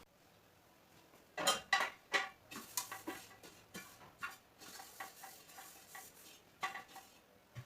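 Dishes and cutlery clinking and knocking as they are handled, a run of irregular sharp clinks, some with a brief ring, the loudest cluster about one and a half to two and a half seconds in and another near the end.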